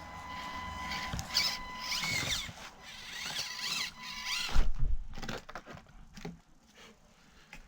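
Micro RC crawler's small electric motor and gearbox whining, the pitch rising and falling with the throttle. About four and a half seconds in comes a sharp thump and then light clattering as the truck tips and rolls over.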